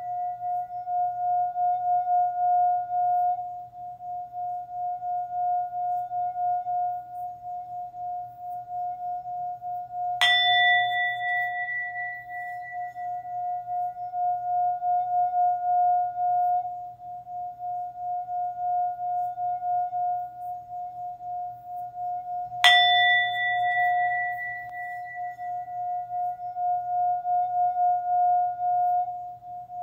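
Singing bowl ringing with a steady, wavering hum throughout. It is struck twice, about ten seconds in and again about twelve seconds later, and each strike adds a brighter, higher ringing that fades over a few seconds.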